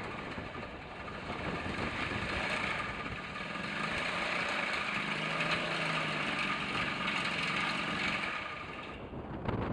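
Honda Zoomer's 49cc four-stroke single-cylinder scooter engine running with a strange noise from inside the engine, which the owner has been told is likely a worn big end bearing. It stops about nine seconds in.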